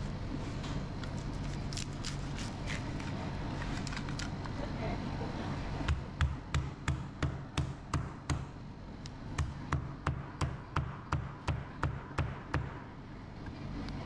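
Two runs of sharp, even knocks with a dull thud to each, about three a second, starting about six seconds in and stopping shortly before the end, over a steady low hum and background noise.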